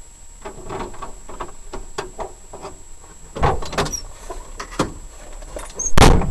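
A run of sharp knocks and clatters, then a single loud, deep bang about six seconds in.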